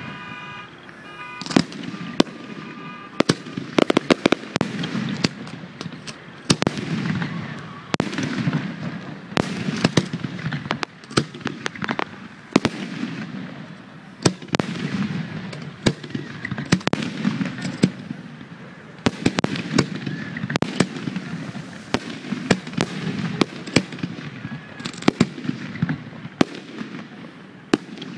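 Aerial fireworks shells bursting in quick succession: many sharp bangs, each trailing off in a rolling echo.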